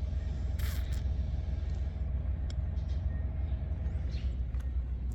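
Engine-driven machine running steadily: a deep, continuous low rumble with a faint steady whine above it, and a brief rustling swish about a second in.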